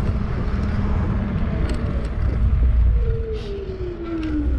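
Low, steady rumble of a vehicle being ridden over rough ground, with a whine that falls steadily in pitch over the last second and a half.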